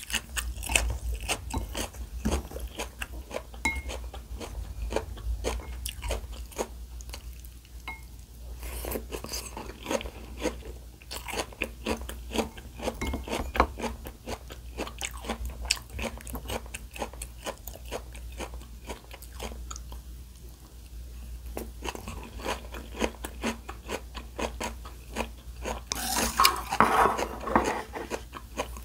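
Close-miked chewing and crunching of food, a dense run of small, irregular crisp crunches and mouth clicks, a little louder near the end.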